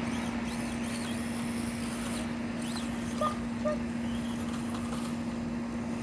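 A steady low hum over outdoor background noise, with two short chirps a little past the middle.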